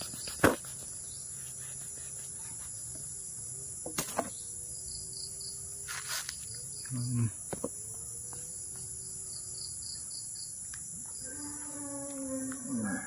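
Steady shrill chorus of crickets, with a few sharp clicks and knocks, the loudest about half a second in. Near the end a rooster starts crowing.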